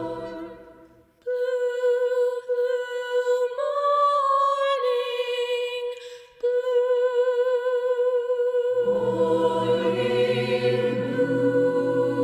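A chord fades out, then a solo female voice sings slow, held notes with light vibrato, stepping up in pitch and back down, with short breaks between phrases. About nine seconds in, a mixed choir enters on a sustained chord beneath it.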